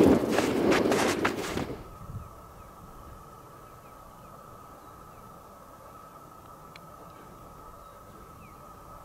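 Footsteps crunching on snow for about the first two seconds, then an abrupt cut to a faint steady hiss carrying a few faint, short, high chirps.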